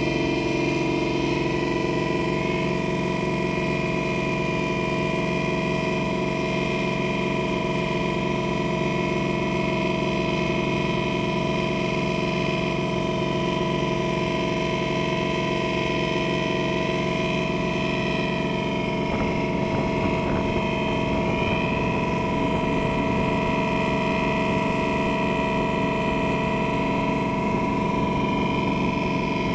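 Engine of a motorboat running at a steady speed, a constant multi-toned drone. Its low rumble gets rougher about two-thirds of the way through.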